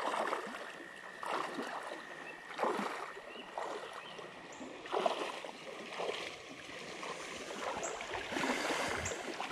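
Water sloshing and splashing in a shallow stream in uneven surges about once a second, like steps wading along a muddy stream edge, over the steady rush of the flowing current.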